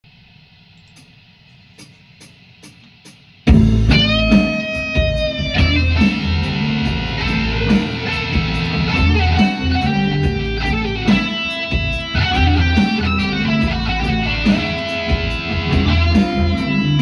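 Rock music with electric guitar and bass: a quiet opening of faint regular ticks, then the full band comes in loudly about three and a half seconds in, the guitar bending notes.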